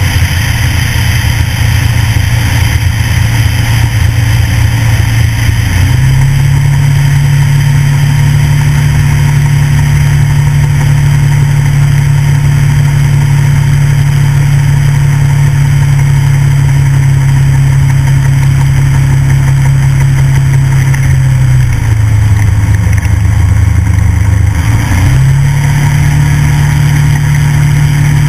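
Light aircraft engine and propeller running steadily through a landing. The pitch steps up about six seconds in, drops about 22 seconds in, dips briefly near 25 seconds and then picks up again as the throttle is moved.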